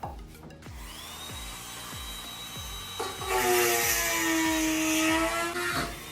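Small rotary tool (Dremel) grinding wood: the motor whines up about a second in, then from about halfway it grinds much louder under load for roughly three seconds, its pitch sagging a little, and stops near the end.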